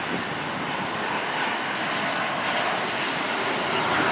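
Jet engines of a Boeing 737-800 (CFM56 turbofans) on final approach to landing, a steady rushing roar that grows slightly louder near the end as the airliner comes close.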